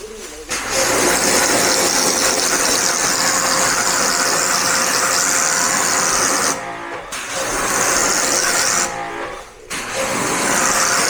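A machine running with a loud, steady hiss, stopping briefly twice and starting again.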